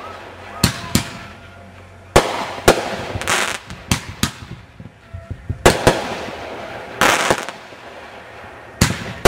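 Aerial fireworks bursting in the sky one after another: about a dozen sharp bangs at uneven intervals, some trailing off in a short hiss.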